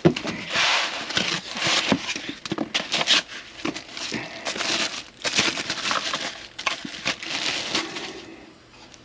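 Foam packing sheets and plastic wrapping crinkling and rustling in irregular bursts as a car stereo is unpacked from its box, dying down near the end.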